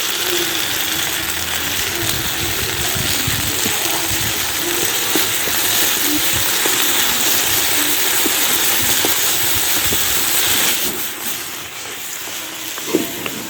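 Saag (mustard greens) sizzling in hot oil in a pan, a steady hiss that drops off about eleven seconds in.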